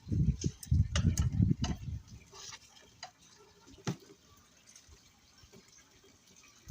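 Hands working with a plastic basin and cooking oil, which is being put in the basin so the mortar won't stick: a cluster of knocks and clicks in the first two seconds, then a single sharp click about four seconds in.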